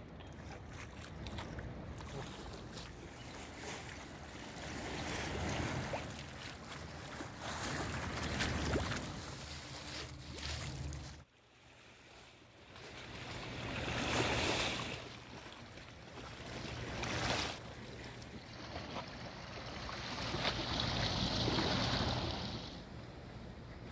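Wind gusting across the microphone over choppy, wind-driven lake water lapping against the shore wall. The rushing swells and falls with the gusts, cuts out suddenly about eleven seconds in, then builds again.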